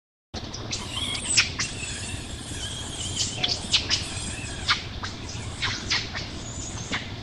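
A baby macaque squeaking: a string of short, high-pitched squeaks and chirps, coming thick between about one and five seconds in, over a steady low outdoor background.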